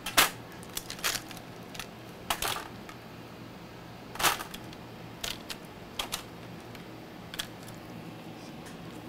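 Irregular hard clicks and light clatter of salvaged laptop logic boards and parts being picked up, sorted and set down on a workbench, about a dozen knocks spread unevenly, the loudest near the start.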